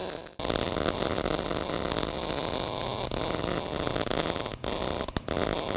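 MIG welding arc crackling steadily as a padding bead is laid along the edge of a wide gap in steel plate, running at 17 volts and 195 wire feed speed. The arc breaks off briefly three times: just after the start, and twice near the end.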